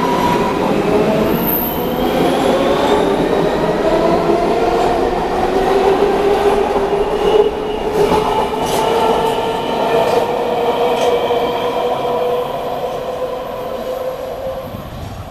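MARTA rapid-transit train accelerating out of a station past the platform, its electric traction motors whining in tones that rise slowly in pitch, with a few clicks of wheels over the rails. The sound fades as the last car pulls away near the end.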